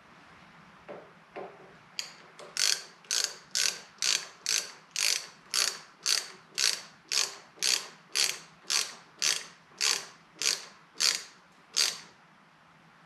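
Hand ratchet tightening the bolts of the master cylinder's handlebar clamp, about twenty short clicking strokes at roughly two a second, after a few faint clicks. The bolts thread into old aluminum that strips easily.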